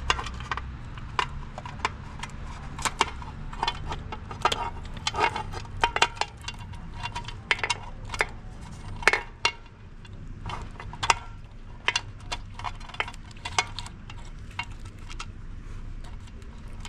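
Irregular metallic clicks and clinks of hand tools and small parts being handled while an electric bicycle's controller is being swapped, with a steady low hum underneath.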